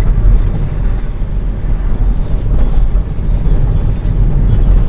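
Steady low rumble of wind and road noise from a moving vehicle travelling along a road.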